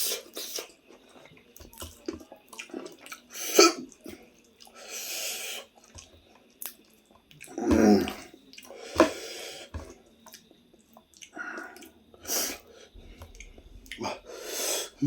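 Close-up eating sounds: intermittent wet chewing and slurping, in separate short bursts with a longer hissy slurp about five seconds in.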